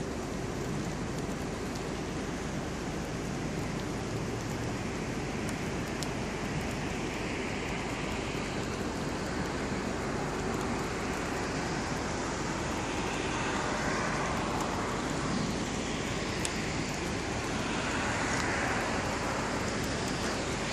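Steady rushing hiss of rain under a thunderstorm, swelling slightly now and then, with a few faint ticks.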